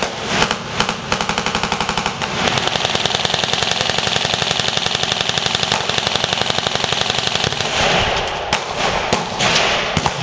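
Rifle gunfire. Scattered, overlapping shots give way about two seconds in to a fast, evenly spaced string of shots lasting about five seconds, then scattered shots resume.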